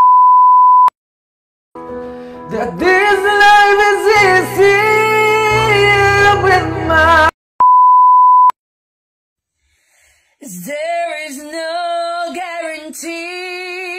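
A steady 1 kHz test-tone beep, then a person singing over backing music into a microphone, the voice sliding up sharply and straining on a high note (a piyok, a voice crack). A second beep, a short silence, then a woman singing alone with a wide, wobbling vibrato.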